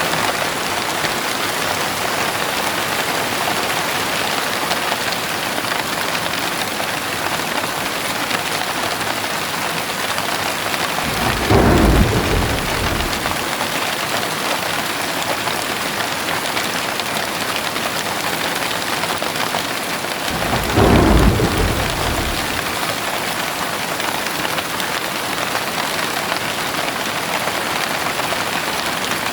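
Steady heavy rain falling, with two low rolls of thunder, one about a third of the way in and one about two thirds in.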